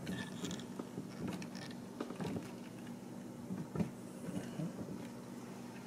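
Small clicks, creaks and rubbing of plastic as clear tubing is worked onto a plastic elbow fitting on a bidet's water-heater tank, in short irregular bursts.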